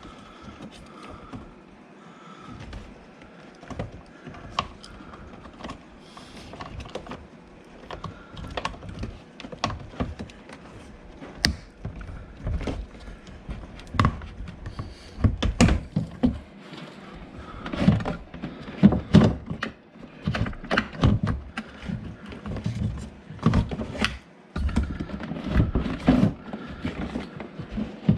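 Door handle parts and trim of a Mercedes S63 AMG (W222) being handled and refitted by hand: scattered clicks, taps and knocks, sparse at first and coming thicker and louder about halfway through.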